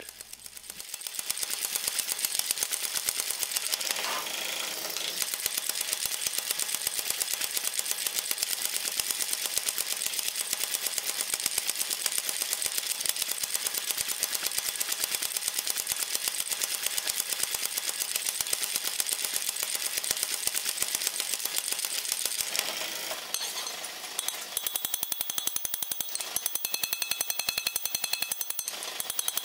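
Mechanical power hammer pounding a red-hot iron bar with rapid, even blows, drawing it down to a taper. About three-quarters of the way through it stops and gives way to hand-hammer blows ringing on the anvil.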